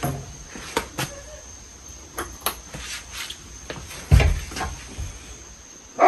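Hampton Bay Cameron II Plus ceiling fan running with a steady high whine, over which come irregular clicks and knocks. The loudest is a heavy thump about four seconds in.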